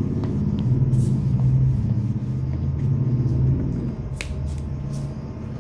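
A low, wavering rumble with a few light clicks, the sharpest about four seconds in.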